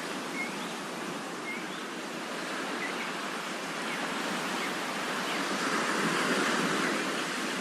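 Sea waves washing on a shore, a steady wash that swells about two thirds of the way through and then eases, with a few faint bird chirps in the first few seconds.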